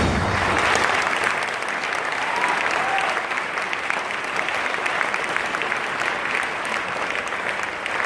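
Theatre audience applauding steadily right after a choir's final chord cuts off.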